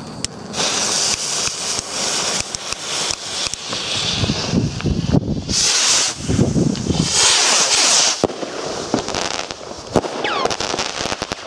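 Several NICO Rallye Ring rockets launching one after another, each with a rushing hiss. Near the end they burst in the sky with a series of sharp pops and cracks.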